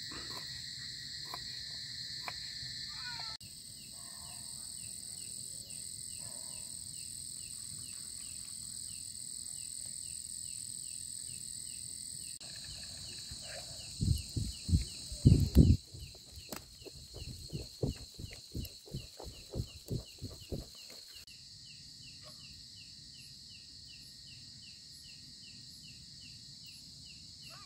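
Evening chorus of insects: a steady high-pitched buzz with a chirp that repeats several times a second. A bit past halfway, a run of dull knocks lasts several seconds.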